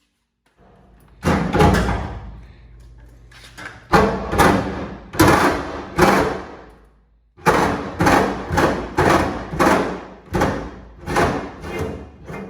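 A series of heavy thuds, each with a short ringing tail: a few spaced pairs at first, then a quicker run of about ten blows from about halfway through.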